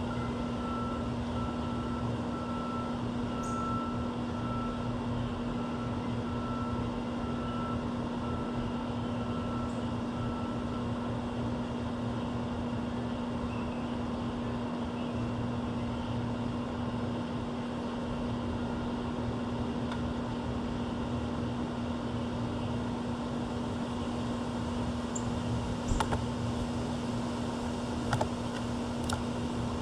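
Steady mechanical hum with a constant low tone, like an air-conditioning unit or fan running. A few sharp clicks come near the end.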